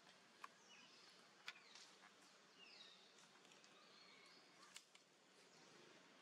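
Faint outdoor ambience with a few quiet, high-pitched chirping calls that slide up and down, and three or so sharp ticks.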